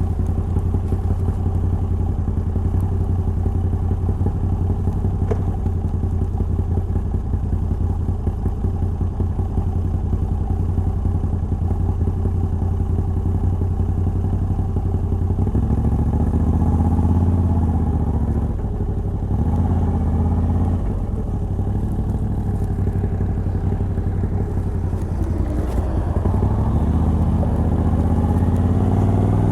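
Moto Guzzi V85TT's air-cooled transverse V-twin, on its stock exhaust with a Mistral decat pipe, heard while riding. It holds a steady cruise for about the first half, then revs up and down through several gear changes, rising again near the end.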